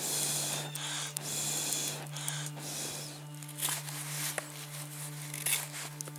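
Wood being scraped and then whittled with a large knife: a steady scraping hiss for the first few seconds, then a few separate sharp knife strokes.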